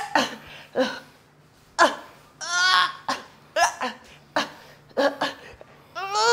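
A person laughing in a run of short, separate bursts, each well under a second, with brief pauses between them.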